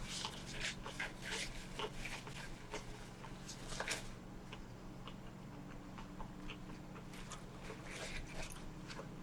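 Close-up chewing and mouth sounds of someone eating a bacon cheeseburger: scattered soft clicks, thickest in the first four seconds, over a steady low hum.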